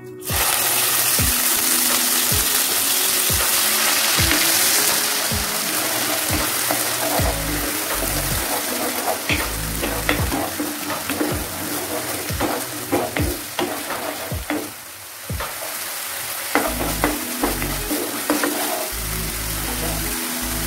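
Onion paste dropped into hot oil, which sizzles suddenly and loudly as it goes in, then keeps frying while a wooden spatula stirs it, with many short scrapes and taps against the pan. The sizzle eases a little later on and dips briefly about three-quarters of the way through.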